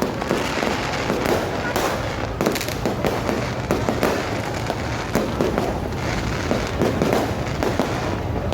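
New Year fireworks going off continuously: a dense run of bangs, pops and crackles overlapping one another, with no pause.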